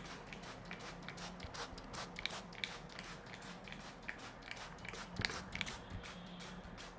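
Barber's hands massaging an oily scalp and hair: irregular, crackly, squelching clicks, a few a second, a little louder about five seconds in.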